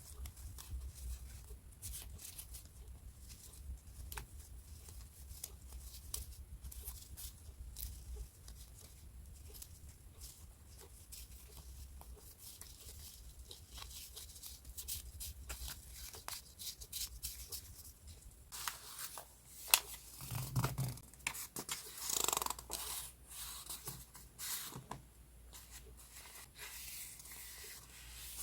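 Paper journaling supplies being handled: soft taps and light paper rustles, turning to louder rustling and crinkling of paper in the last third, with one sharp click about twenty seconds in.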